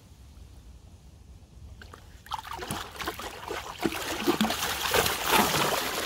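Lake water sloshing and splashing as a big carp is released from a sling at the water's edge. It is quiet for about two seconds, then grows into heavy, irregular splashing as the fish thrashes off.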